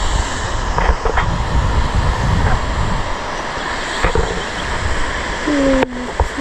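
Steady rushing outdoor noise, with wind buffeting the microphone in uneven gusts at the low end.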